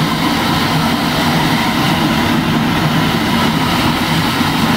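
Cab noise of the 2-8-0 steam locomotive No. 734, working up a grade: a loud, steady mix of running noise and clatter, heard inside the cab.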